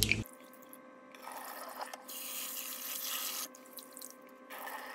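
Water sloshing and swishing as hands stir and rinse soaked glutinous rice in a stainless steel bowl of water, in two spells.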